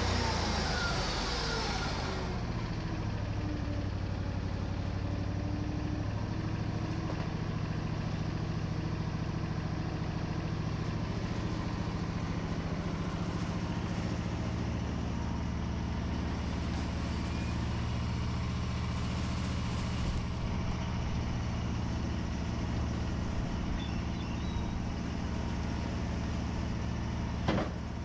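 Wood-Mizer LT40 portable band sawmill running, its engine pitch falling over the first two seconds as it slows, then holding a steady drone. One short knock near the end.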